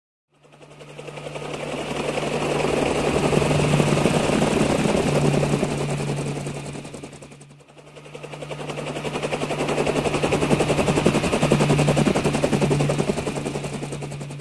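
Military helicopter flying past twice. Each pass swells up and fades away over about seven seconds, with a rapid rotor chop over a steady engine drone.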